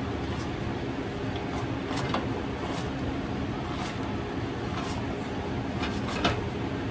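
A steady low machine hum with a few light clicks and knocks of kitchen handling on top, the sharpest about six seconds in.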